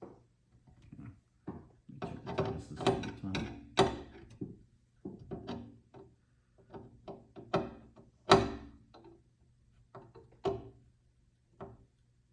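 Irregular knocks, clicks and clatter from a metal door handle, its fittings and hand tools being handled against a sauna door, with a run of busy knocking early and the loudest single knock about eight seconds in.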